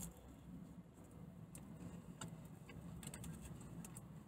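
Quiet car-cabin room tone: a faint low rumble with a few scattered light ticks, irregular and spread out.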